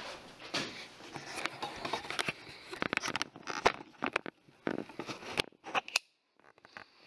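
Handling noise as the camera is picked up and moved: irregular clicks, taps and rubbing. It drops almost to silence for a moment about six seconds in.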